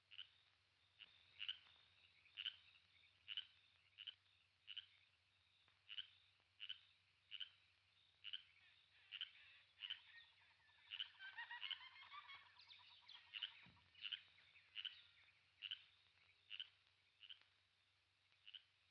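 Faint jungle night ambience: a small animal's short chirping call repeating about once a second, with a brief burst of quicker twittering in the middle and a single low thump shortly after it.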